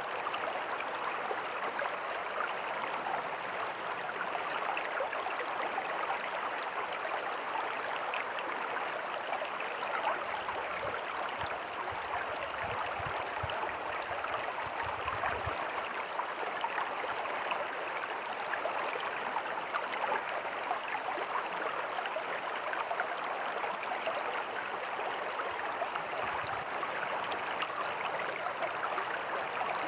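Small creek and tiny waterfall flowing over rocks: a steady, even splashing and gurgling of water, with a faint low rumble for a few seconds near the middle.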